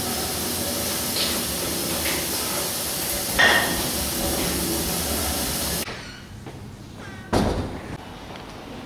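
Water running from a washroom tap into the sink, a steady hiss with a sharp knock about three and a half seconds in. The hiss stops about six seconds in, and a single thud follows about a second later.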